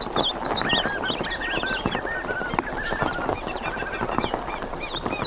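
Many birds chirping and calling, with short high chirps and a repeated arched call lower down, over a dense patter of small taps.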